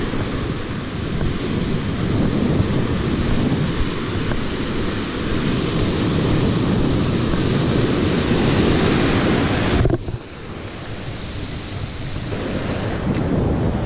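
Ocean surf breaking and washing up the beach, mixed with wind buffeting the microphone. The sound drops suddenly about ten seconds in, then builds again as the wash comes in.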